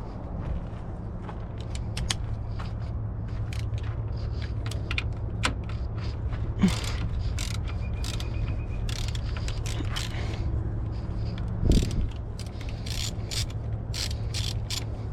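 Hand ratchet wrench clicking in irregular runs as fasteners are worked loose, with a couple of louder metal knocks, over a steady low hum.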